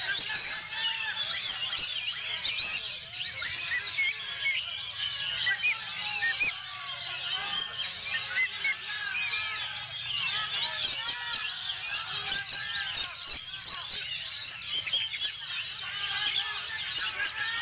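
Oriental magpie-robins singing at a bird-song contest: many birds at once in a dense, overlapping chorus of sharp chirps, whistles and trills.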